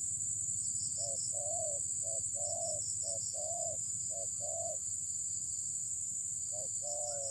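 Spotted dove (terkukur) cooing: a run of short-then-long coos, breaking off about five seconds in and starting again near the end. Insects drone steadily behind it with a high pulsing trill.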